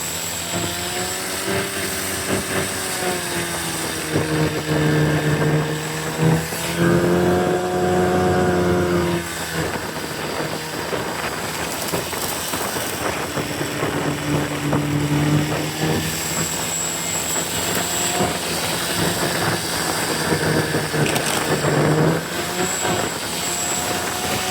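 Small snowmobile engine running, its pitch rising and falling repeatedly as the throttle is opened and eased, with a steady wash of noise beneath it.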